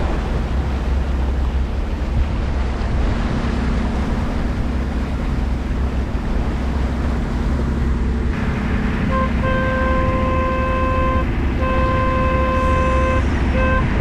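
Boat engine running steadily under way, with wind and water noise. From about nine seconds in, a steady high tone sounds in on-off stretches of one to two seconds each.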